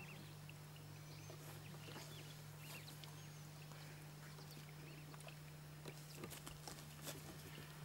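Faint, quiet ambience: a steady low hum, with scattered soft clicks and a few short, faint chirps.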